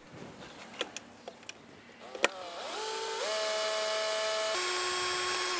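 Cordless drill held against a wooden fence bracket: a few light knocks and a sharp click, then the motor spins up into a rising whine, runs steadily, shifts pitch about two seconds later as the load changes, and stops suddenly.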